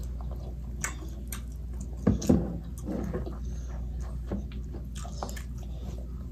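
Wet chewing, lip smacks and small mouth clicks from eating spaghetti and meatballs, with a louder cluster of mouth sounds about two seconds in.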